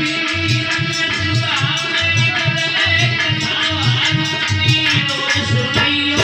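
Indian devotional music: a hand drum keeping a steady fast beat, jingling percussion on each stroke, and held keyboard or harmonium notes.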